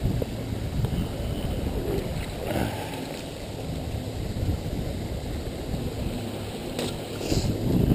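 Wind buffeting the microphone in a steady low rumble, with a few brief splashes from a hooked trout fighting at the creek's surface, one about two and a half seconds in and more near the end.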